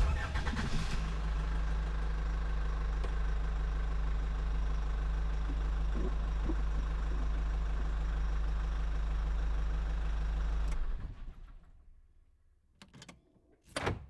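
Steady low engine rumble, like a vehicle idling at one constant pitch, which fades out near the end, followed by a couple of faint clicks.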